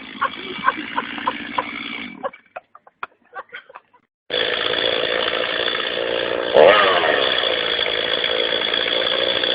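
Chainsaw-like engine sound idling with a rhythmic putter. It cuts out for about two seconds, then runs again and revs up and down near the end.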